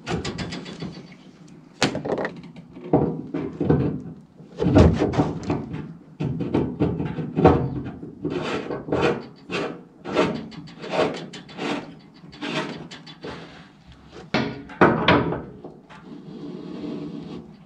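Irregular knocks and clunks of tools and fittings being handled, in quick clusters with short pauses between them.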